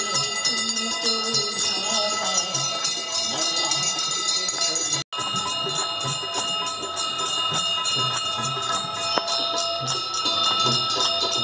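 Brass aarti bells ringing continuously in a fast, even rhythm, with singing and music beneath. The sound cuts out for an instant about five seconds in.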